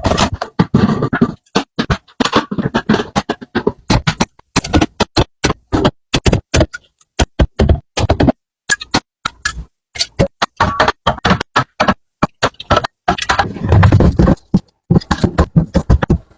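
A fast, irregular run of sharp clicks, taps and clunks from groceries and containers being handled and set down, with short dead-silent gaps between groups of strokes.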